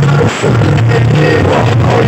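Very loud music with heavy bass blasting from a stacked loudspeaker sound system, briefly dipping about a third of a second in.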